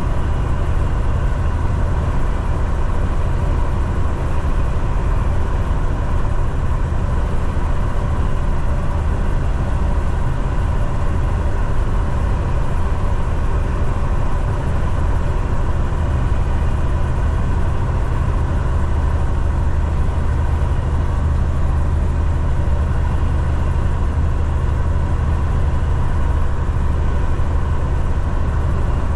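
Semi-truck's diesel engine and road noise heard from inside the cab, a steady low drone that holds even throughout.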